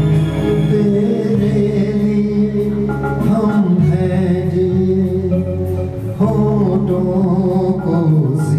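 A man singing a Hindi song into a handheld microphone over amplified instrumental accompaniment with sustained chords.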